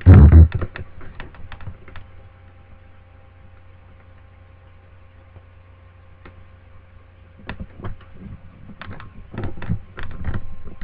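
Computer keyboard and mouse clicking: a loud knock right at the start, a run of clicks, a pause where only a faint steady hum remains, then more clicking in the last few seconds.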